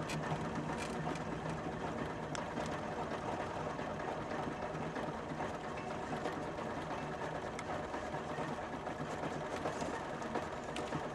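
Interior sound of a 1972 Trabant P 601 on the move: its small air-cooled two-stroke twin-cylinder engine running steadily, a fast, busy, sewing-machine-like chatter over a constant low hum.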